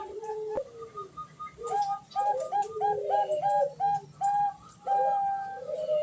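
Female Bangkok zebra dove (perkutut) cooing to call a male: a quick run of short, evenly repeated notes, about three a second, with lower sliding coos beneath, then a longer held note near the end.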